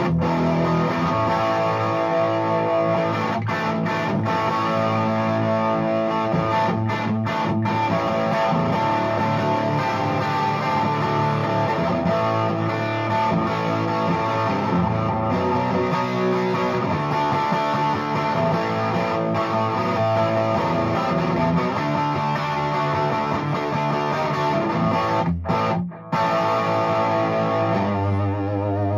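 Gibson ES-335 electric guitar played through a Fuchs Train-45 tube amp running 6V6 power tubes into a single 12-inch Vintage 30 speaker cabinet: continuous playing with a brief pause shortly before the end.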